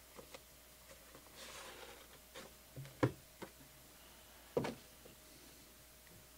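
Cardboard trading-card boxes handled on a table: a soft sliding rustle, then a few light knocks as the box is set down, the two loudest about three and four and a half seconds in.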